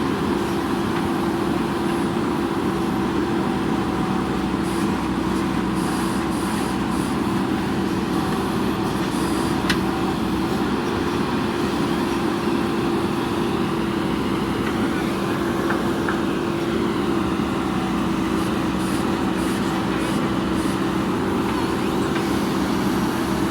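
JCB backhoe loader's diesel engine running at a steady speed, a constant hum with one short click about ten seconds in.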